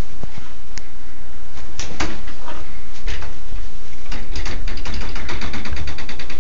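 Plastic flap of a dog door knocking against its frame a few times, then a fast, even ticking rattle through the second half.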